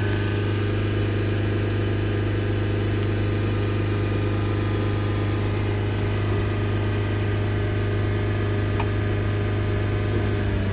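Hyundai i20 engine running steadily at a raised speed held by a scan-tool fuel-system test, its No. 3 cylinder injector circuit just repaired; the mechanic expects the earlier knocking and misfire to be gone.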